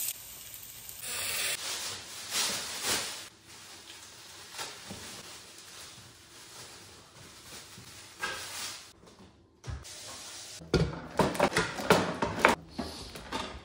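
Kitchen clatter: rustling and scattered knocks, then near the end a run of loud clattering as a bamboo cutting board is put into a pull-out drawer among utensils and containers.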